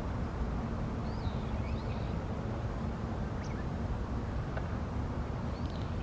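Steady low outdoor rumble, like wind or distant traffic, with a few faint short bird calls about a second in and again near the end.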